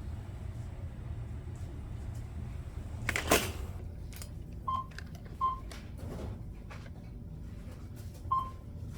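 Three short electronic beeps, like a checkout barcode scanner reading items, over a steady low store hum, with a brief clatter about three seconds in.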